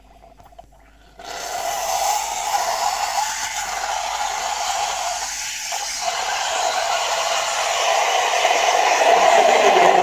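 Espresso machine steam wand opened about a second in, hissing steadily as it steams milk for tea in a stainless steel pitcher, growing louder near the end.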